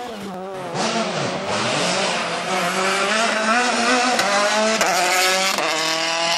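Rally car engine at full throttle, accelerating through the gears: the pitch climbs, drops back sharply at each upshift, twice in the second half, then climbs again. It gets louder about a second in.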